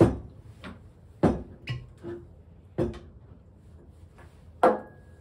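Glass whisky bottles and tulip-shaped tasting glasses set down one after another on a stone countertop: four sharp clunks, roughly a second and a half apart, with lighter knocks in between. The last glass rings briefly with a clear tone.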